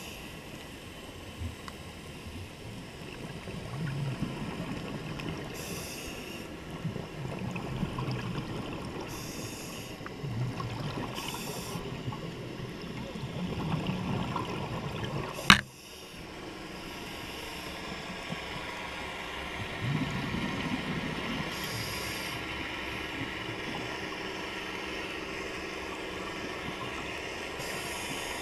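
Muffled underwater sound through a camera housing, with a scuba diver's breathing and exhaled bubbles swelling and fading every few seconds. A single sharp knock sounds just past halfway and is the loudest moment.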